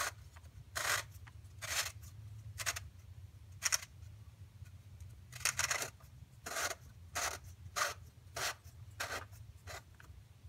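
Black plastic oil filter housing cap on a 2007 Chevy Cobalt's 2.2 L Ecotec engine being screwed down onto its housing: a short scraping rasp with each turn, about eleven times, roughly once a second, over a steady low hum.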